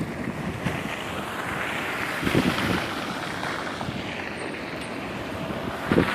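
Wind buffeting the microphone in a snowstorm over a steady hiss of city street noise, with low thumps about two and a half seconds in and again near the end.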